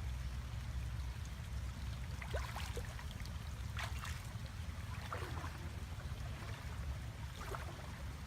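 Water splashing and sloshing in short bursts, about five times, over a steady low rumble.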